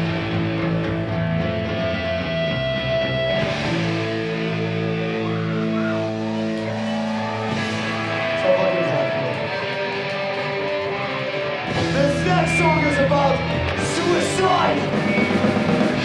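Live punk rock band playing, electric guitar holding chords that change every couple of seconds. About three quarters of the way through, the playing gets louder and busier.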